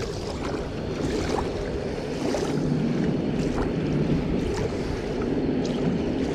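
Steady wind buffeting the microphone, a low, even rush, with a few faint clicks scattered through it.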